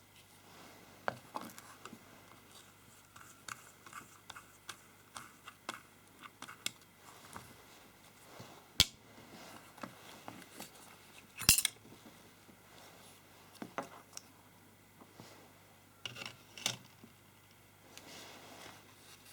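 Small tools and parts being handled during a radio circuit-board repair: scattered light clicks and taps, with a sharp click about nine seconds in and a short clatter about two and a half seconds later.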